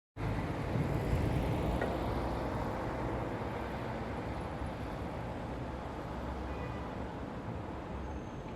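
Street traffic noise: a steady low rumble that starts suddenly just after the beginning.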